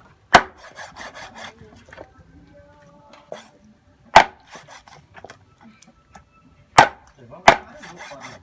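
Knife chopping on a wooden chopping board: four sharp chops spaced a few seconds apart, with scraping and rustling in between.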